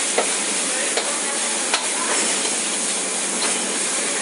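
Noodles frying in a hot wok with a steady sizzle, while a metal ladle stirs and tosses them, clinking against the wok a few times in the first couple of seconds.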